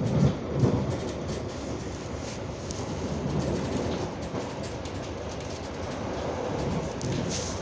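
Passenger train running, heard from inside the carriage: a steady rumble and rattle of the wheels on the track, with a couple of louder bumps in the first second.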